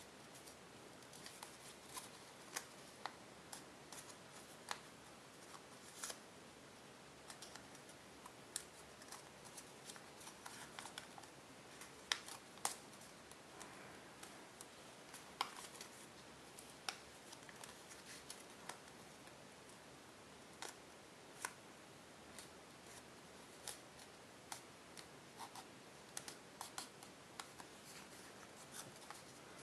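Tissue-foil origami paper crinkling and crackling in the hands as it is folded and creased: irregular sharp little clicks over a faint hiss.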